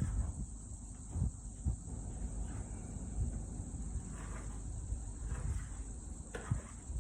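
Insects chirring steadily in the background in one unbroken high-pitched drone, over a low rumble with a few faint knocks.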